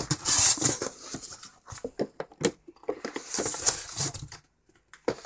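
Rustling and light knocks of a cardboard action-figure box with a plastic window being handled and set down, in irregular bursts.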